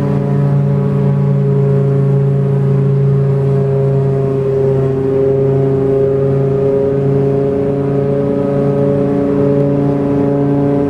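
New Holland FR600 self-propelled forage harvester running under load while chopping a standing cereal crop, heard from inside the cab: a loud, steady mechanical drone with a fixed pitch that wavers only slightly.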